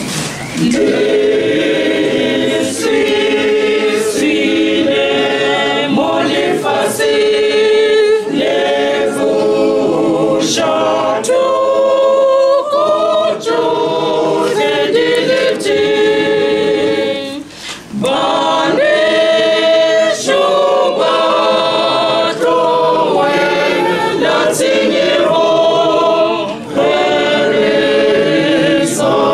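Church choir of men's and women's voices singing a hymn a cappella in Sepedi, with one short pause for breath a little past halfway.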